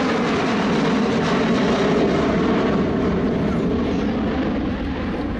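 Jet aircraft engines running, a steady rushing noise.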